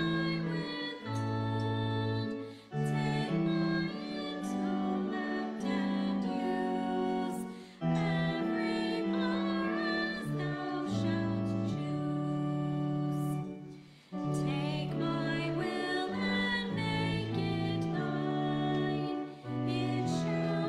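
Hymn music in slow, held chords, breaking off briefly between phrases about three times.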